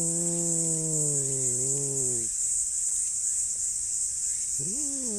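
Tabby stray cat growling: a long, low, drawn-out growl that ends about two seconds in, then a second growl near the end that rises and falls. It is a threat growl while being petted, aimed at a rival cat nearby. A steady high insect buzz runs underneath.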